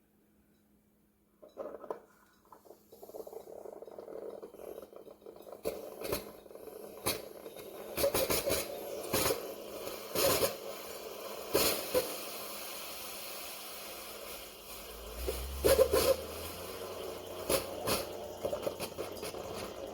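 Instant Pot single-serve coffee maker's pump starting up about a second and a half in and running with a steady hum broken by irregular clicks and knocks. It is failing to push water through properly, and the owner suspects the pump has gone.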